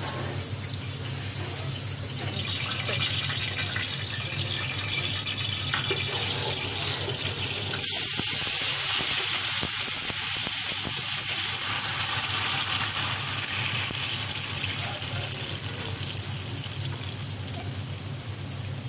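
Water being poured into a steel pot of hot oil and cumin seeds: a steady rushing hiss that starts about two seconds in, is loudest around the middle and eases off near the end.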